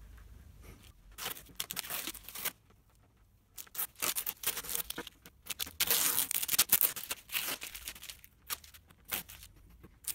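Masking tape being peeled off a laminate-faced furniture board in a series of rips, loudest about six to seven seconds in, with short crackles as the strips come away and are crumpled.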